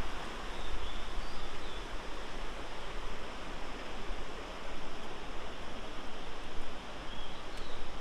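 Steady rushing of river water over the rock rapids of Fukiware Falls on the Katashina River.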